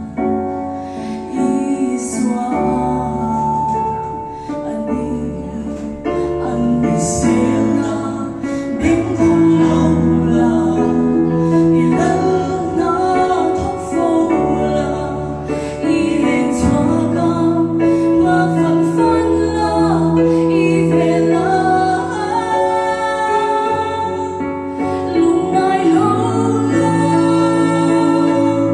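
A vocal trio, a woman leading with two men, singing a gospel song through microphones over keyboard accompaniment with sustained bass notes.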